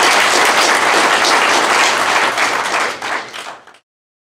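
Audience applauding, a dense patter of many hands clapping that thins out about three seconds in and then cuts off suddenly.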